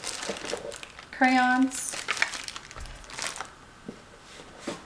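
Rustling and crinkling as small items are handled in a cardboard shoebox and a box of crayons is lifted out and set on the table, with a few light knocks. One word is spoken about a second in.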